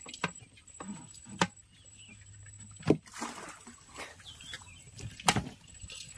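Water splashing and sloshing at a small boat as a baited crab line is hauled up, with four sharp knocks scattered through, the loudest about three seconds in.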